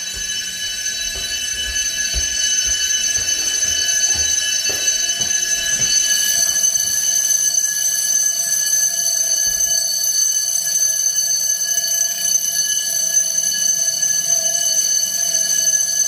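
Building fire alarm bells ringing steadily without a break, sounding for a fire alarm test; the ringing grows louder about six seconds in.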